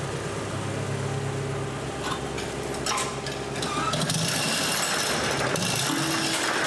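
John Deere ProGator 2020A utility vehicle running steadily, its new transmission input shaft bearing sounding good. About four seconds in the sound gets louder and noisier.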